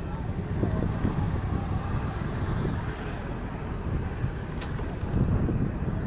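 Street ambience of distant road traffic mixed with a low, gusty rumble of wind on the microphone, with one brief tick about four and a half seconds in.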